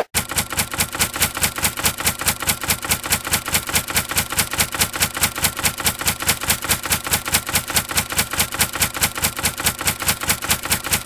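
Typewriter key-clicking sound effect: a steady, rapid clatter of sharp clicks, about four to five a second.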